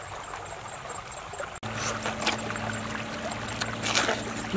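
Shallow rocky stream running, with a steady low hum that comes in about a third of the way through. There are a few short wet bites into watermelon, one near the end.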